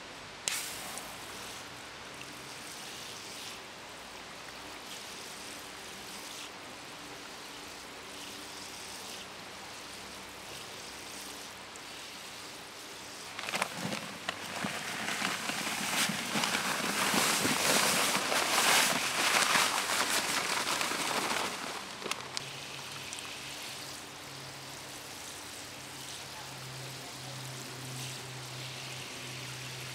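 Lafarge Postcrete pouring from its bag into a water-filled post hole: a loud rushing hiss for about eight seconds from around the middle. Near the end a garden hose spray nozzle sprays water over the poured postcrete to wet it, a quieter hiss.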